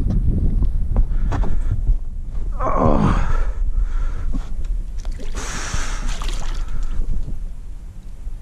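Wind rumbling on the microphone while a pike is released back into the water by hand, with a short falling grunt of breath about three seconds in and a splash of water lasting a second or two about halfway through.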